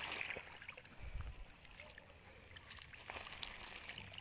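Faint sloshing and splashing of water as a hand moves through and squeezes dried banana leaves soaking in a tub, with scattered small clicks and rustles of the wet leaves. The leaves are being soaked until soft as mushroom-growing substrate.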